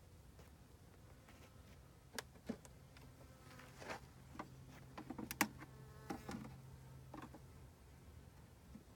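Honeybees buzzing steadily around an open hive, with scattered knocks and scrapes as the wooden frames are handled, busiest in the middle.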